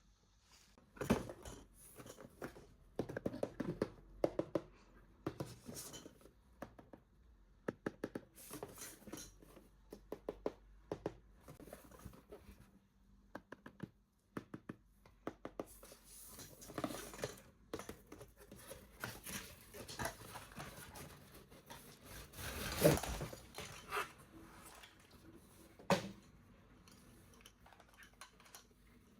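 Toy packaging being handled and opened by hand: irregular rustling, tearing and crinkling of box and plastic wrap, with small clicks and taps. Near the end comes a louder spell of crinkling, followed by a single sharp knock.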